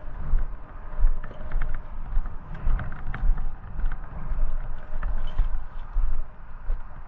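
Footsteps crunching over gravel and loose rocks, with many short sharp clicks, over an uneven low rumble.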